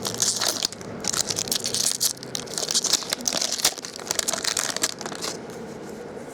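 Wrapper of a baseball card pack crinkling and rustling with sharp crackles as it is handled and opened. It stops about five seconds in.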